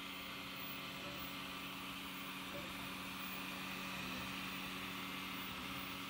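Prusa i3 MK2 3D printer at work: its cooling fans give a steady whir and hum, with faint shifting tones from the stepper motors as the print head moves.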